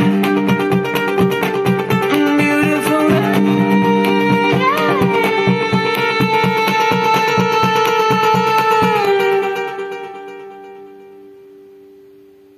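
A song played through a handmade Bluetooth speaker: guitar-led music that ends on a held chord, dying away from about nine and a half seconds in.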